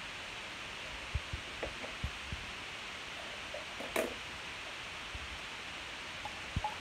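Steady background hiss with a few soft low bumps and a single sharp click about four seconds in.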